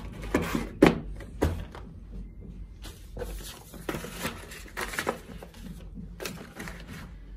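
Cardboard packaging being handled: a few sharp knocks and thunks from the box's inner cardboard trays in the first second and a half, then rustling and scraping of cardboard and paper leaflets.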